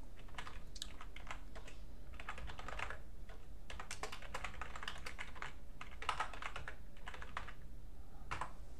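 Typing on a computer keyboard: runs of quick key clicks broken by short pauses, with one last separate keystroke near the end.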